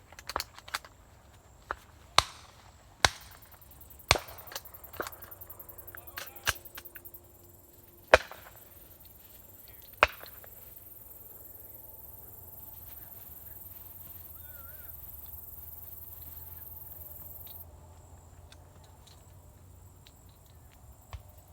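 A run of sharp, irregular cracks and knocks, the loudest about two, three, four, eight and ten seconds in. A steady high buzz of cicadas runs from about seven to seventeen seconds in.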